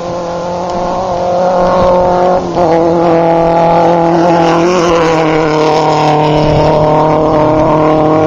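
Off-road desert race buggy engines running hard as the buggies come up and go past. The engine note builds over the first two seconds, drops out briefly about two and a half seconds in, then holds loud and steady.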